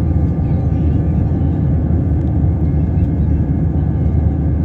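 Jet airliner cabin noise during the climb after takeoff: the engines and rushing airflow make a loud, steady, deep roar, with a few faint steady tones above it.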